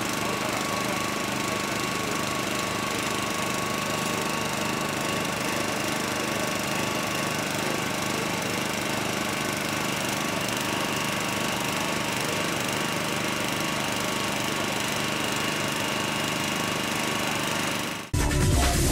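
Small petrol engine of a hydraulic rescue-tool power unit running steadily, driving the pump for the firefighters' extrication tools. It cuts off abruptly near the end, and a loud music jingle begins.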